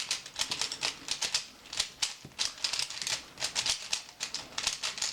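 Rubik's Cube being scrambled by hand: a fast, irregular run of plastic clicks and rattles as its layers are turned quickly.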